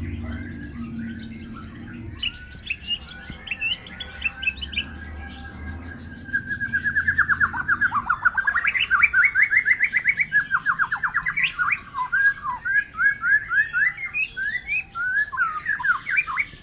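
A murai batu (white-rumped shama) singing continuously in varied whistled phrases, building after a few seconds into long runs of fast, sweeping notes at about ten a second.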